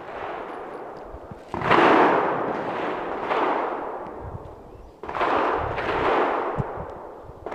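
Three pistol shots about one and a half to two seconds apart, each followed by a long, slowly fading echo.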